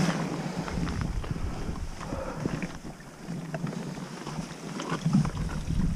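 Wind buffeting the microphone, with scattered scrapes and knocks of a scrambler's hands and boots on wet rock.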